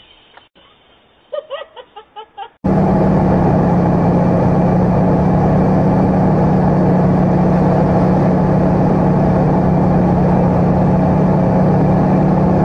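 Steady, loud drone of a propeller plane's engine and rushing air heard inside the cockpit, starting abruptly about two and a half seconds in. Before it, a few short faint pitched sounds.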